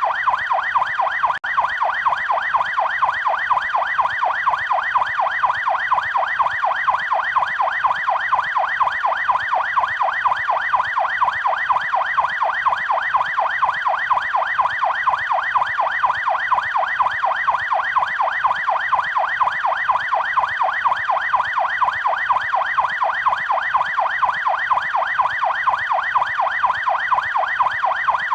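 Electronic police siren on the fast yelp setting: a rapid, evenly repeating rise-and-fall wail, about three to four sweeps a second, with a momentary dropout about a second and a half in.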